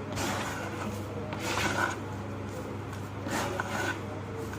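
Dry, crumbly clumps of ash and sand being crushed and crumbling, in three soft crunches a little over a second and a half apart, over a steady low hum.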